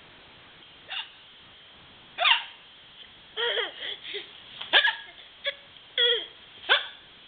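Repeated hiccups: about eight short, squeaky hiccup sounds at irregular intervals, each with a quick slide in pitch.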